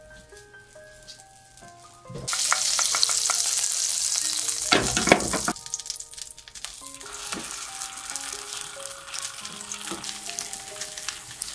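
Butter sizzling in a nonstick frying pan. The sizzle starts about two seconds in and is loud for a few seconds, then settles to a softer sizzle as egg-soaked slices of bread fry as French toast. Soft background music plays underneath.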